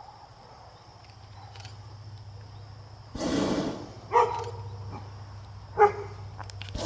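A dog barking several times: a rougher bark about three seconds in, then two short sharp barks about a second and a half apart. A steady low hum runs underneath, and a broad rushing noise starts just at the end.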